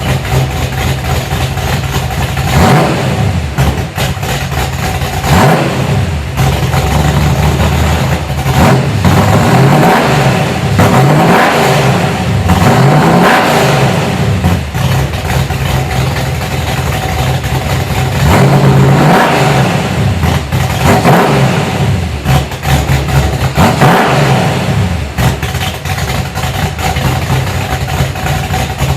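355 small-block Chevy V8 with a Crane 302H06 camshaft on a 106° lobe separation angle, idling and being blipped with the throttle about every two to three seconds, each rev rising and falling back to idle. It is a mild street cam in a stock 9:1 short block.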